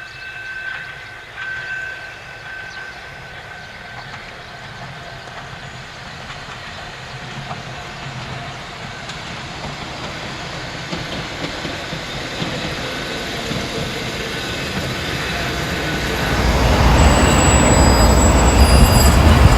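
Train braking from about 45 km/h: running rail noise with faint steady squeal tones, growing gradually louder. Near the end a heavy low rumble swells up, and a thin high-pitched squeal comes in over it.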